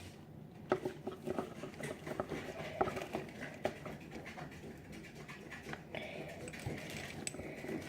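Irregular light clicks and taps from objects being handled close by, thickest in the first half and sparser after.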